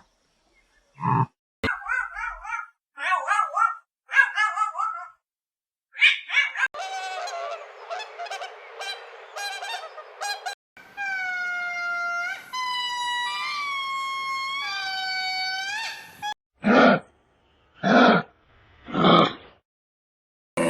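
A string of different animal calls cut one after another: short loud cries, a run of quick warbling chirps, then a series of long tones gliding up and down, and three loud short calls near the end.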